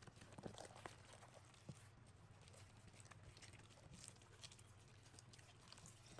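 Faint, scattered sticky clicks and small smacks of old slime being squeezed and kneaded by hand, over near silence.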